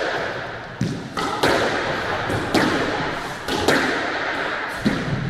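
Squash rally: a string of sharp smacks of racket on ball and ball against the court walls, irregularly spaced about a second apart, each with an echoing tail.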